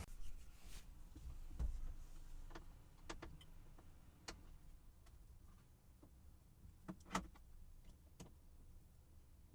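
Faint, scattered clicks and taps of hand work on the truck's dashboard trim as a rubber mat is pulled out and Phillips head screws are taken out, with the loudest click about seven seconds in.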